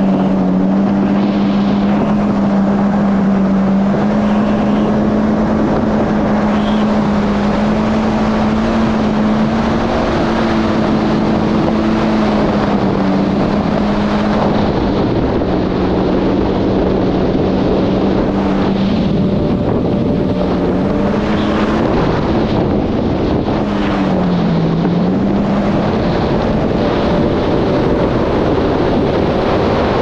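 Yamaha GP1800R SVHO jet ski's supercharged four-cylinder engine running at a steady cruising speed, its pitch wavering a little and dipping briefly about 25 seconds in. Wind buffets the microphone throughout.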